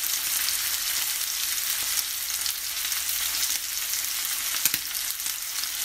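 T-bone steak sizzling in hot butter in a frying pan as it sears on its first side: a steady high hiss with scattered crackles and a few sharper pops.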